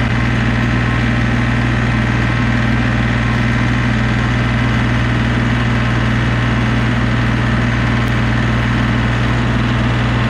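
Compact loader tractor's engine running at a steady speed as the tractor drives along, an even low hum that holds the same pitch throughout.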